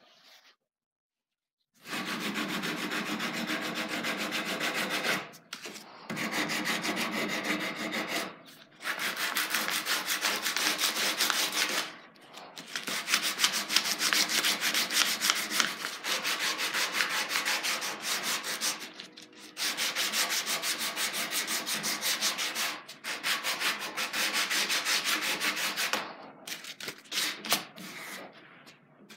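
Hand sanding of a rounded wooden frame rail with a strip of sandpaper pulled back and forth around it. The sanding starts about two seconds in and goes in bouts of a few seconds with brief pauses between.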